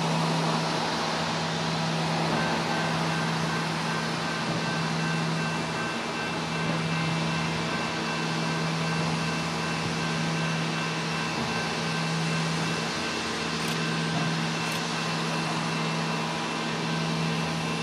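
Steady mechanical hum: a constant low drone with a few fixed higher tones over a steady wash of noise, with a couple of faint ticks about three-quarters of the way through.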